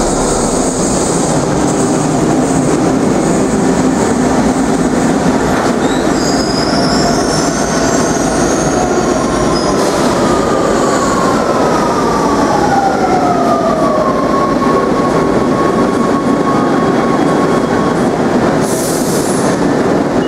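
Rome Metro Line B train pulling into the station: loud running and rumble of the wheels on the track, with high wheel squeal midway. A falling whine follows as it slows, then a steady tone once it has nearly stopped, and a short hiss near the end.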